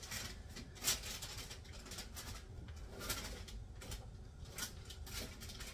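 Raw sweet potato fries being pushed around on a metal sheet pan by hand: a few short, light clicks and scrapes, the clearest about a second in and about three seconds in, over a low steady hum.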